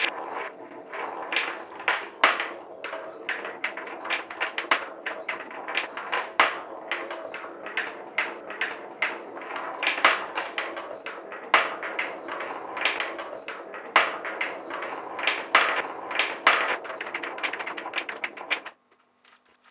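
Steel balls rolling along a wooden marble-run track: a continuous rolling rumble with frequent sharp clicks and clacks as the balls knock against the track pieces and one another. The sound cuts off abruptly near the end.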